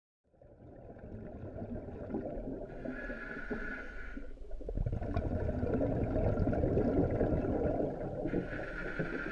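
Scuba diver breathing through the regulator of an OTS Guardian full face mask, heard underwater: a hissing inhalation, then a longer low bubbling rumble of exhaled air, then another hissing inhalation near the end.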